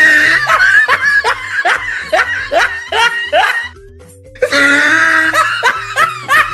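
Edited-in laughing sound effect: a run of quick, evenly paced 'ha-ha' laughs, heard twice, over background music.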